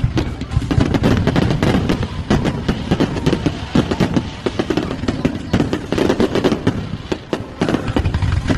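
Fireworks going off in a rapid, continuous barrage of overlapping bangs and crackles.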